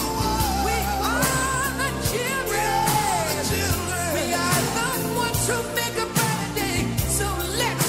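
Pop song with a lead singer over a full band backing.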